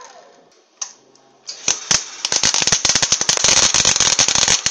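A single click a little under a second in, then a gasless flux-core MIG welding arc strikes about a second and a half in and crackles and spits loudly and irregularly, throwing spatter. The welder is on minimum wire feed and its lowest power setting.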